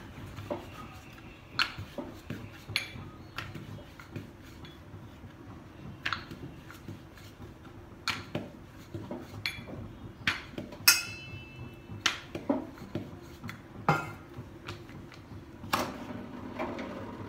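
Wooden rolling pin knocking and rolling on a wooden board as flatbread dough is rolled out, with irregular sharp clicks and knocks. About eleven seconds in comes a ringing metallic clink.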